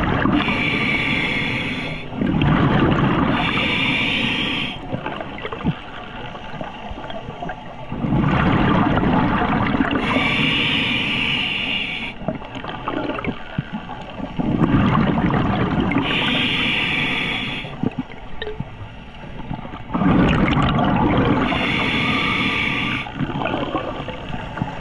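Scuba diver breathing through a regulator underwater: long bursts of rushing, bubbling exhaled air, each with a hiss, repeating about every five to six seconds.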